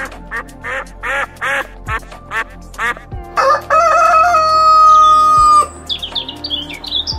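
A duck quacking in quick succession, about three quacks a second. About three seconds in, a rooster crows one long, held crow. Quick high chirps follow near the end, over soft background music with a low beat.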